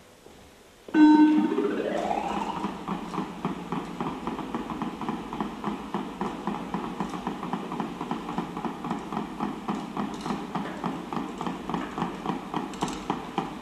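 Electronic sound of the sexed robots starting up: a sudden buzzy tone about a second in that glides up in pitch over about a second and a half, then settles into a fast, steady rhythmic pulsing of several pulses a second, the clicking of the robots in their normal navigating state.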